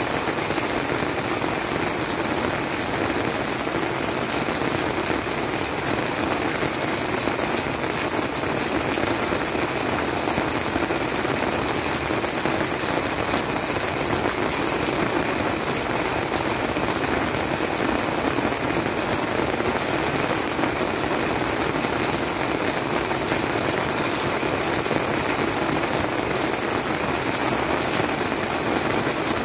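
Monsoon-season rain falling steadily on garden leaves, an even, unbroken hiss of drops.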